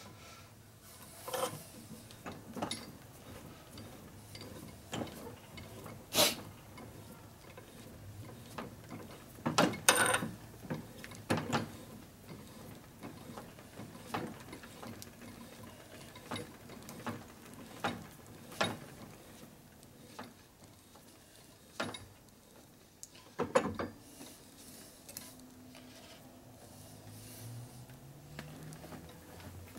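Scattered metallic clicks, knocks and clinks of Harley-Davidson Evolution engine parts being fitted onto the flywheel shaft on an engine stand, as a T-handle tool is threaded onto the shaft. The sharpest knocks come about six and ten seconds in, with another near the three-quarter mark.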